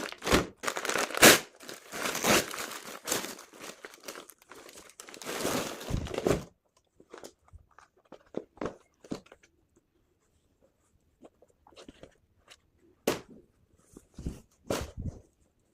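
Packaging being torn open and crinkled for about six seconds, then lighter rustling and handling noises, with a couple of louder rustles near the end.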